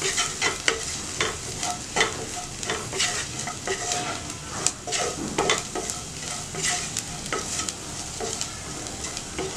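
Wooden spatula scraping and tapping around a nonstick frying pan, stirring onions and spice powders frying in oil, with a low sizzle underneath.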